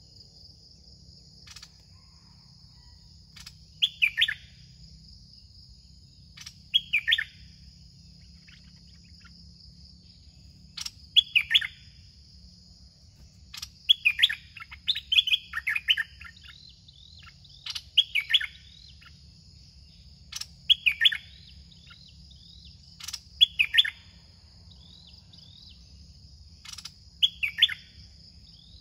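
Red-whiskered bulbuls singing: short warbled phrases that fall in pitch, repeated every few seconds, over a steady high-pitched insect drone.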